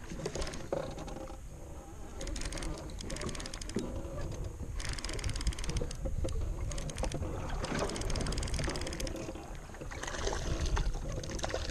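Ambient sound aboard a small fishing boat: a steady low rumble with a rushing hiss that swells in the middle, and scattered small knocks and clicks of handling on deck.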